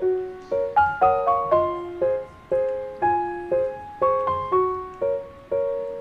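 Background music: a light instrumental tune of struck or plucked notes, each starting sharply and ringing away, several notes a second.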